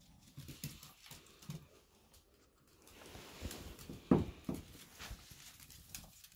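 Small dogs' claws tapping and pattering on a hardwood floor and rug as they move about, with one sharper thump about four seconds in.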